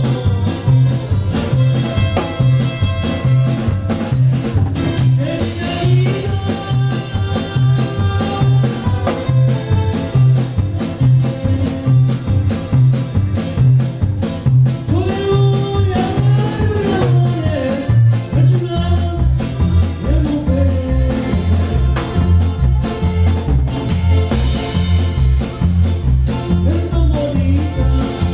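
Live norteño band playing a dance tune: the bass alternates between two notes on a steady beat under drums, with a sung melody line on top.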